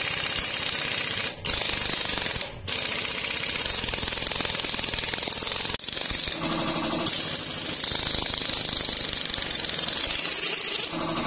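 Chicago Pneumatic impact wrench hammering continuously on the clutch hub nut of a Bajaj CT100 motorcycle engine, working at a nut the mechanic calls tight. It stops briefly about one and a half, two and a half and six seconds in, then resumes.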